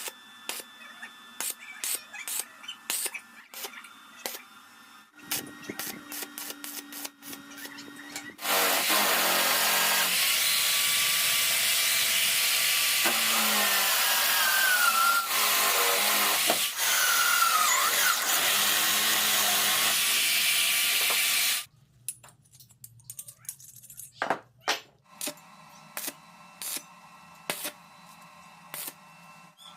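Workshop power tool: after scattered clicks of handling, a motor hums steadily about five seconds in, then a loud, noisy cutting run lasts about thirteen seconds and cuts off suddenly, followed by more clicks and knocks.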